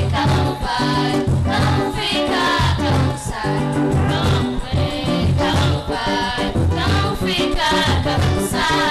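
Music: a lively song with a steady, repeating bass line and a wavering melody over it.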